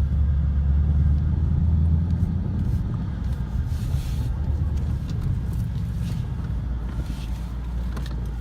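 Car engine running with a steady low rumble, strongest for the first two seconds and then easing a little.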